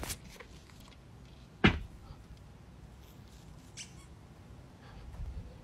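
A single sharp knock about a second and a half in, over faint room hiss, followed by a few faint clicks.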